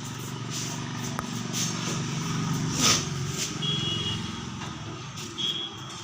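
A motor vehicle's engine running steadily, with a sudden louder sound about halfway through and two short high beeps near the end.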